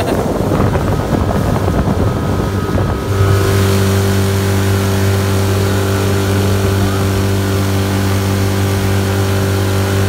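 Small tiller outboard motor driving an inflatable dinghy under way, its steady drone firming up and growing a little louder about three seconds in, with water rushing in the wake.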